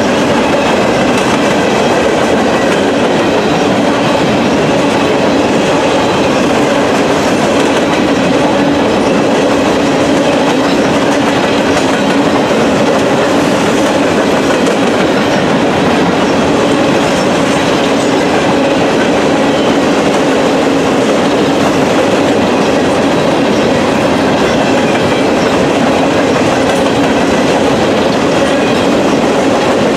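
Norfolk Southern freight train's open-top hopper cars rolling past close by: a loud, steady rumble of steel wheels on the rails.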